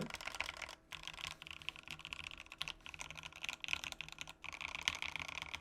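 Typing test on a Satisfaction75 mechanical keyboard with Banana Split switches lubed with 205g0, an FR4 plate and PBT keycaps: a fast, continuous run of quiet keystrokes, lower in sound profile and not resonant.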